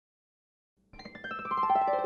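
Silence for about the first second, then music comes in: a run of bright keyboard-like notes falling in pitch and growing louder.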